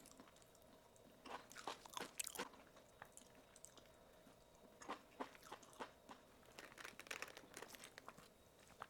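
Close-up eating sounds: a person chewing bites of stir-fried tofu and eggplant, with soft crunching clicks in three short bursts, about a second in, around the middle, and in the second half.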